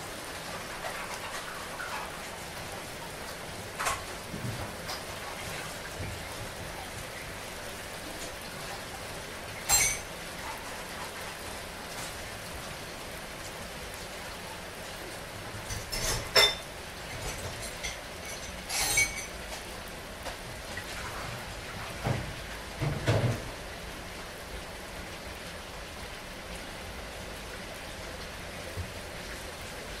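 Steady patter of falling water with a few scattered sharp clinks and knocks, the loudest about ten seconds in and again a little past halfway.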